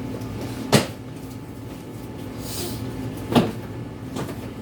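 Two sharp knocks of things being handled and set down, about two and a half seconds apart, over a faint steady hum.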